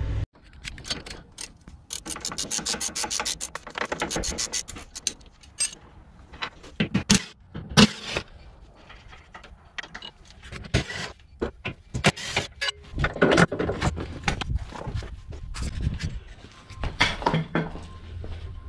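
Ratchet wrench clicking in fast runs as the sway bar mounting bolts are backed out, with scattered metal clanks and knocks from the parts being handled.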